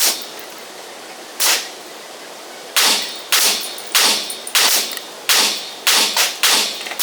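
A string of gunshots at a shooting range: one shot about a second and a half in, then about eight more from about three seconds in, roughly two a second, each with a short echo.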